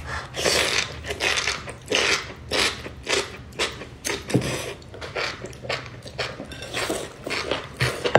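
Close-up slurping and chewing of enoki mushroom strands pulled from a spicy broth: a quick, uneven series of wet slurps, one or two a second.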